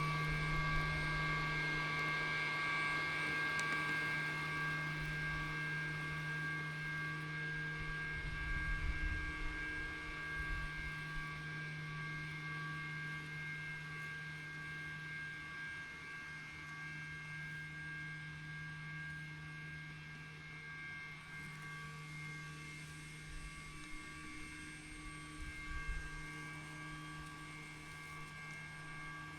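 Lymow One robot lawn mower's electric drive and blade motors running with a steady hum, fading slowly as it moves away.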